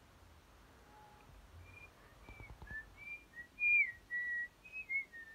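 A person whistling a little tune of short notes and slides, beginning about a second and a half in and ending on a rising slide.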